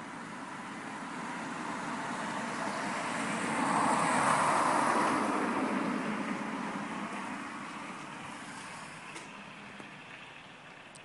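A vehicle passing on a wet road: tyre hiss and rumble swell to a peak about halfway through, then fade away.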